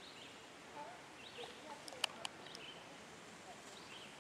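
Faint outdoor ambience: a low steady hiss with a few short, faint chirps and two sharp clicks about two seconds in.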